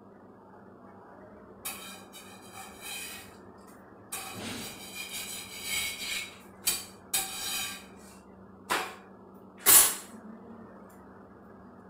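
Rolling out and cooking rotis: a wooden rolling pin rolling, scraping and knocking on a board, with a roti handled on the hot tawa. Several short scrapes and clacks come in a loose run, the loudest a sharp knock near the end, over a faint steady hum.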